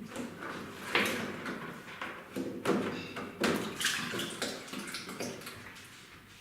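Irregular rustling, scraping and sharp knocks around a rat trap holding a caught rat, as it is handled to get a noose on the rat.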